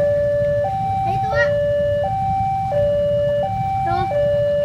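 Level-crossing warning alarm at a railway crossing, sounding a steady two-tone signal: a higher and a lower note swapping about every three-quarters of a second, the warning that a train is approaching and the barriers are down. A few short rising chirps and a low rumble sit underneath.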